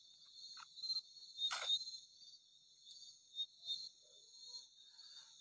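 Faint, steady chirping of crickets, with a single short click about a second and a half in.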